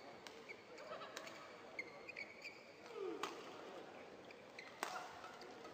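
Badminton rally: the shuttlecock is struck by rackets with sharp cracks about every one and a half to two seconds, the loudest about three and five seconds in. Short high squeaks of court shoes on the floor mat come between the hits, over a steady crowd murmur in the arena.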